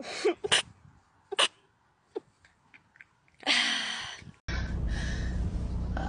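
A woman's rapid little sneezes, about four short sharp ones in the first couple of seconds, then a longer, louder sneeze past the middle. After that a steady low rumble of a car interior comes in.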